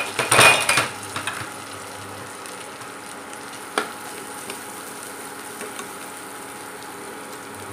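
Chopped onion, steamed soft, sizzling steadily in oil in a stainless steel kadhai as it is stirred with a spatula. A loud clatter comes about half a second in and a single knock near four seconds.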